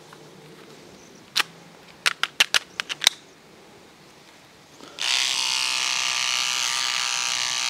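A few sharp plastic clicks from the beard trimmer being handled, one on its own, then a quick run of about six. About five seconds in, the battery beard trimmer switches on and buzzes steadily.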